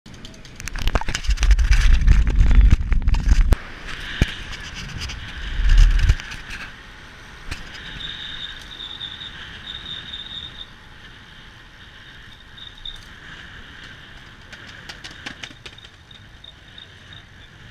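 Road bike ridden at speed with the camera on the bike: heavy wind buffeting on the microphone for the first few seconds and again briefly around six seconds in, then a quieter steady rush of tyres and air with scattered clicks.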